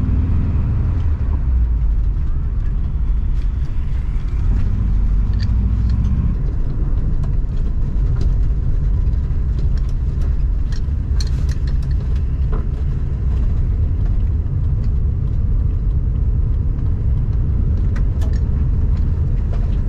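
Volkswagen Kombi driving, its engine and road noise a steady low rumble heard from inside the cab, with a few faint clicks.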